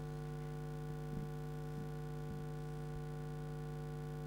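Steady electrical hum from a public-address system, a low buzzing tone with a stack of overtones above it, with a few faint soft knocks.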